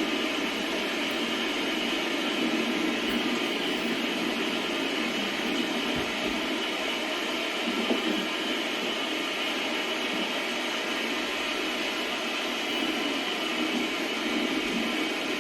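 Steady rain falling in a storm, an even, unbroken hiss of rainfall.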